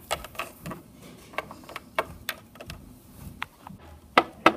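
Small plastic toy figures tapped and hopped by hand on a wooden floor and against a wooden panel: irregular light clicks, with two louder knocks near the end.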